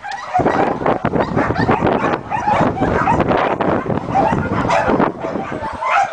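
Several dogs barking and yipping in rapid, overlapping bursts, with no break.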